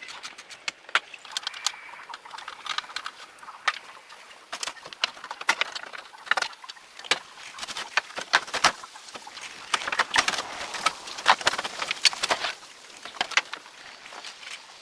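Irregular sharp metallic clinks and knocks, many in quick succession, busiest in the middle: tools and metal parts being handled during mechanical repair work.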